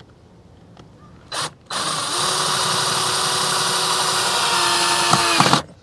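Cordless drill driving a screw to fix a camera mounting bracket: a short blip, then the motor runs steadily for about four seconds, with a few clicks just before it winds down and stops.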